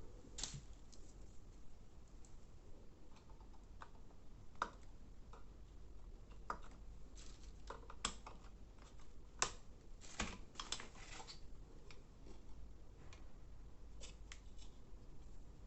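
Scattered light clicks and taps of small tools and electronic parts being handled on a workbench, irregularly spaced, over a steady low hum.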